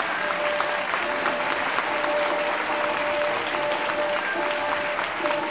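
Sustained applause from many hands clapping, with music carrying a held note underneath.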